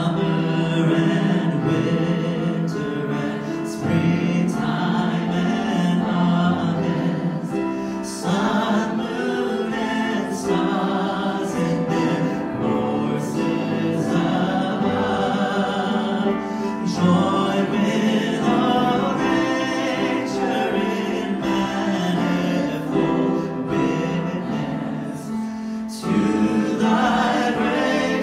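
A choir singing a hymn in sustained phrases that break about every four seconds.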